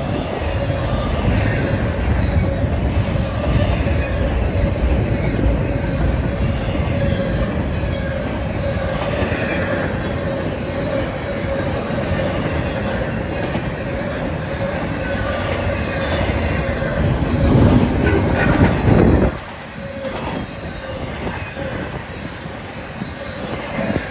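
Norfolk Southern intermodal freight train's double-stack container cars and empty well cars rolling past: a steady rumble of steel wheels on rail, with a steady high wheel squeal. The noise swells for a couple of seconds and then drops off suddenly about three-quarters of the way through, leaving a quieter rumble.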